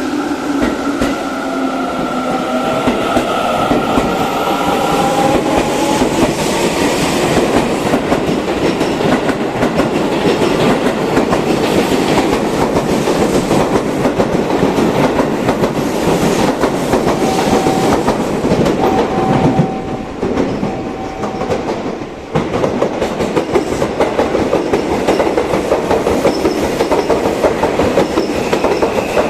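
Seibu Line 'Smile Train' (30000 series) electric train running, wheels clattering over rail joints. Over the first few seconds the traction motors' whine rises in pitch as it gathers speed.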